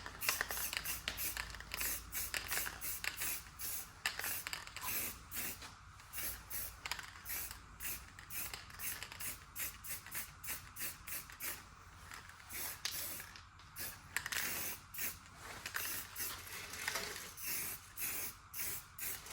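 Aerosol can of black spray paint sprayed in many short hissing bursts, one after another every half second or so.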